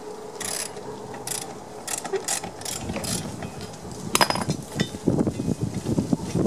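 Socket ratchet wrench clicking on a lawn mower's blade bolt, loosening it to remove the blade: a string of separate clicks, then from about three seconds in a fast continuous rattle, with one sharp clank about four seconds in.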